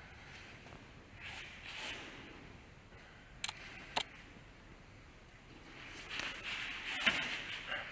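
Soft swishes and rustles of arms and sleeves brushing and pushing against each other in a Wing Tsun lat sao partner drill, with two sharp clicks about half a second apart near the middle.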